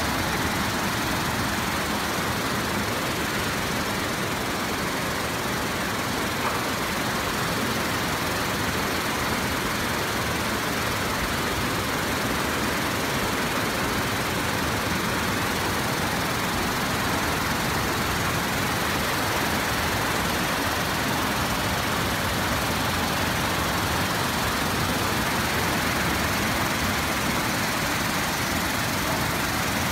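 Flash-flood torrent rushing down a street: a steady, unbroken rushing of fast floodwater.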